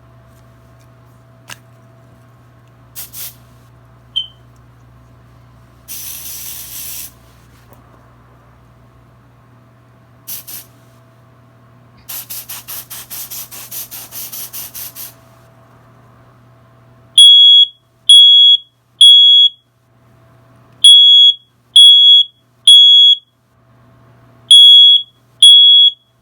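A few short hissing bursts and clicks, then a MasterGuard S-1671 smoke/heat alarm going into full alarm about two-thirds of the way through. It sounds loud, high, piercing beeps in groups of three with a pause after each group (the temporal-three evacuation pattern), repeated three times.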